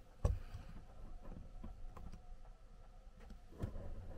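A dull knock just after the start, then scattered faint clicks and taps, and another knock a little after three and a half seconds.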